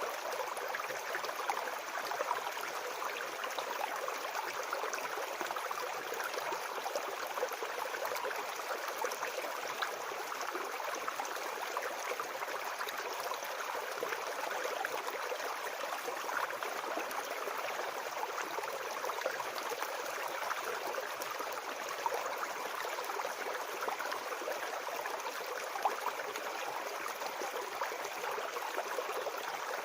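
Small forest brook babbling over stones: a steady, even rush of water with fine splashing.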